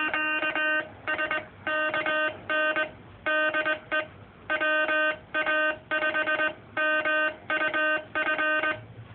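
Morse code sidetone from a Ten-Tec Century 21 transceiver, hand-sent on a straight key: one tone keyed on and off in dots and dashes, with gaps between characters, calling CQ SKN.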